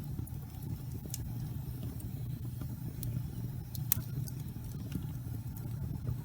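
Wood fire in a fireplace burning with a steady low rumble and scattered crackles and pops, the sharpest pop about four seconds in.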